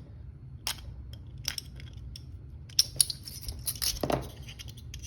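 Light metallic clicks and clinks of a lock pick being worked in a handcuff keyhole, with the cuffs' metal jingling, scattered irregularly over a steady low hum.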